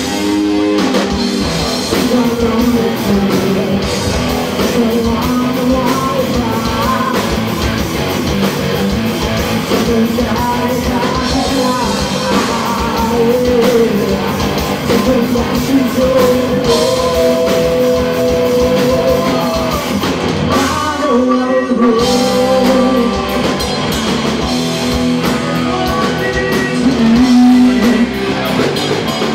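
Live rock band playing loud: electric guitar, bass and drum kit, with a singing voice holding long, wavering notes.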